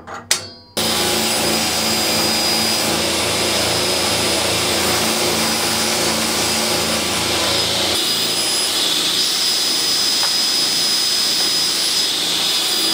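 A few metal clinks, then a table saw with a fine-toothed blade runs steadily, cutting plywood into strips and small blanks. The low part of the sound changes about eight seconds in.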